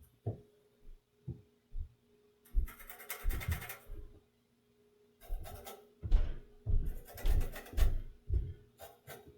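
Pencil and calipers working on a wooden baseball-bat blank: short scratching strokes and soft knocks in several irregular bursts, over a faint steady hum.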